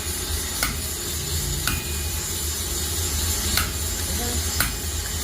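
Hammer blows on metal at the anvil, about one a second, some leaving a brief metallic ring, over a steady low rumble and hiss of workshop machinery or the forge.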